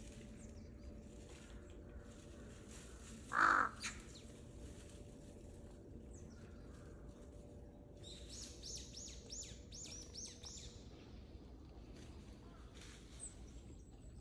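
A crow gives one loud, harsh caw about three seconds in. Later comes a quick run of about eight high, falling bird notes.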